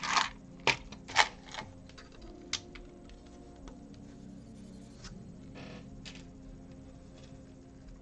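Plastic BlueBrixx building bricks clicking as they are handled and pressed together, with several sharp clicks in the first few seconds and a couple more later. Quiet background music plays underneath.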